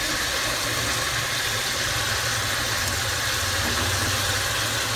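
Steady low hum with a light hiss at the kitchen stove while a pan of cooking oil heats on the burner.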